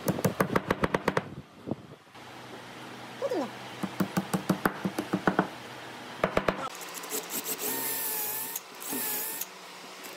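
Quick runs of light taps as wooden dowels are tapped into holes in a wood slab, then about seven seconds in an electric drill with a long auger bit starts boring into a tree stump and runs steadily.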